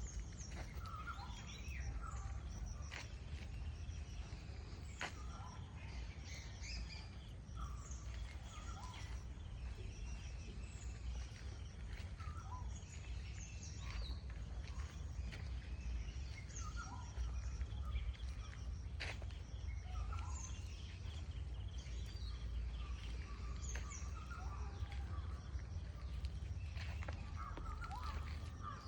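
Several birds chirping and calling on and off throughout, over a steady low rumble, with a few sharp clicks.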